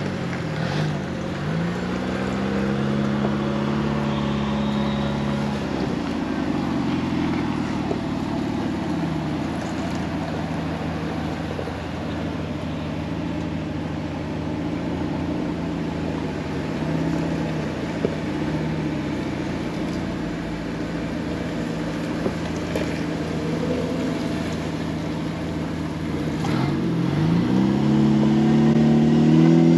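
Jeep Wrangler engine running as the vehicle drives, its pitch falling and rising with the throttle several times and climbing again near the end. A single sharp knock sounds about two-thirds of the way through.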